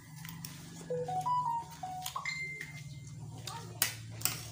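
Cutlery clinking against plates a few times as people eat, the sharpest clinks near the end, over quiet background music with a simple melody of short held notes.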